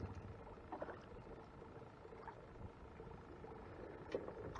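Faint water lapping against a kayak, with a few soft knocks and taps from handling the fishing rod, the sharpest a click near the end.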